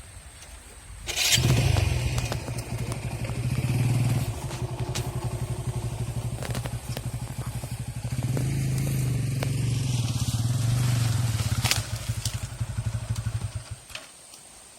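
Motorcycle engine running, its firing pulses steady with two swells in loudness. It comes in abruptly about a second in and drops away near the end.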